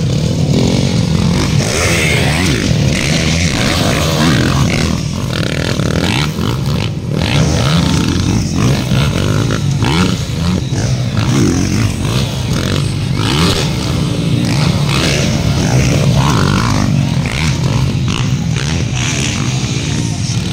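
Several motocross dirt bikes racing on a dirt track, their engines revving up and down in pitch over and over as the riders accelerate, shift and take jumps.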